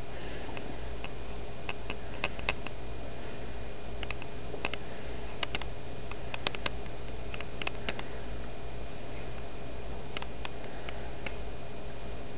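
Scattered light clicks, some in quick pairs, over a steady low hum and hiss.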